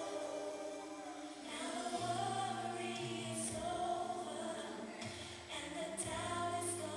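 Recorded contemporary gospel song playing: choir and lead voices holding long sung notes over a steady bass line.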